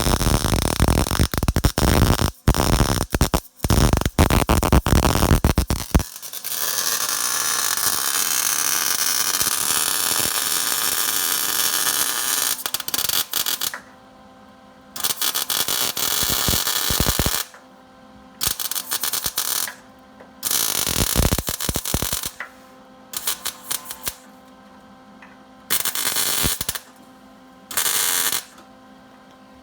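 Electric arc welding on steel brackets: a long continuous crackling, hissing weld bead, then a run of short one-to-two-second stitch welds with pauses between them, and a steady electrical hum in the gaps.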